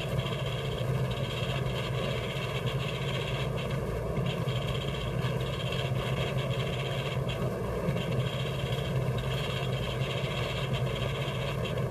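A steady mechanical drone, like machinery running, holding level throughout without breaks or rhythm.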